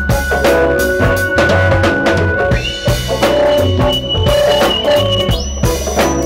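Live R&B band playing, led by a drum kit with kick and snare strokes over bass notes. A high, thin held note runs over the band and jumps up in pitch twice, about two and a half and five and a half seconds in.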